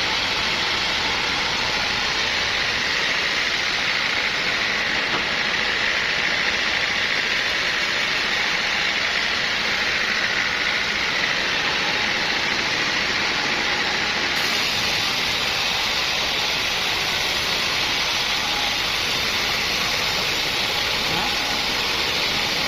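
Sawmill machinery running, a loud steady noise with no pauses; its tone shifts slightly about fourteen seconds in.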